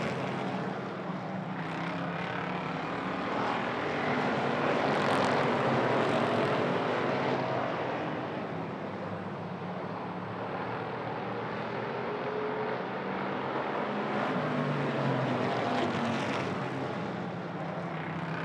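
A field of hobby stock race cars running at racing speed around the oval, their engines swelling and fading as the pack passes, loudest about five seconds in and again near the end.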